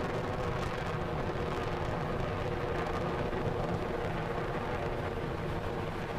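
SpaceX Falcon 9's nine Merlin 1D engines running during ascent: a steady, unbroken rumble with no clear pitch and no breaks.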